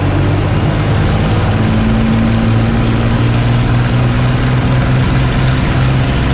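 Hawker Hurricane's Rolls-Royce Merlin V12 engine running steadily at low power on the ground, heard from inside the cockpit. A higher steady tone joins the low engine note about a second and a half in.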